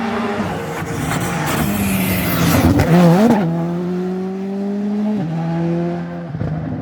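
Rally car engine at high revs, driven hard past on a tarmac stage; the engine note wavers around three seconds in, climbs slowly, then drops in pitch at a gear change about five seconds in.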